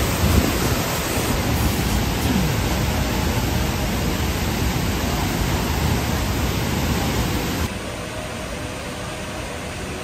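Large waterfall's steady, dense rushing of falling water. About three-quarters of the way through it drops to a quieter rush.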